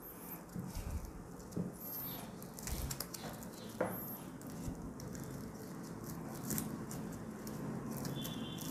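Twisted rope strands rustling and scratching as they are tucked and pulled tight by hand, splicing two ropes together: faint, irregular small clicks and rubs.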